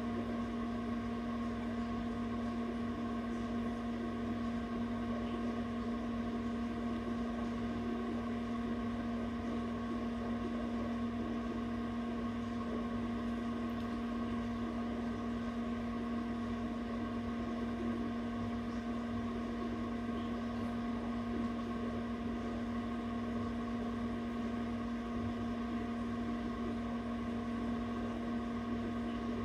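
Steady hum of an egg incubator's fan motor: one low tone with fainter higher tones above it, unchanging.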